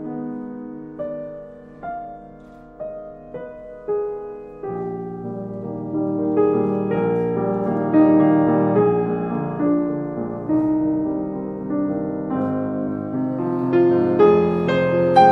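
Slow background piano music. A few single notes ring out and fade at first, then it grows fuller, with low notes joining about a third of the way in.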